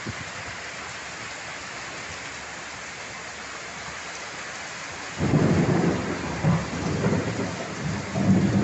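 Heavy rain pouring steadily, then about five seconds in a loud thunderclap breaks in and goes on as a rolling low rumble.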